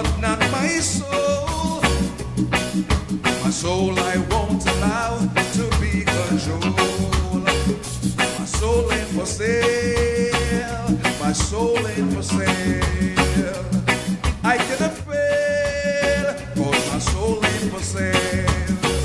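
Background song: a voice singing over a band with a steady drum beat.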